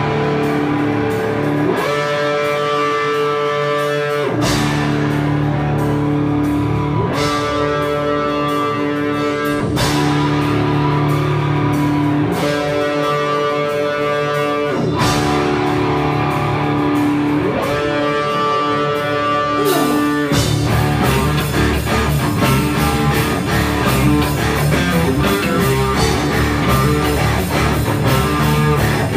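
Live rock band with electric guitars playing. Long held guitar chords slide to a new pitch about every two and a half seconds, then about twenty seconds in the full band with drums takes up a faster, busier rhythm.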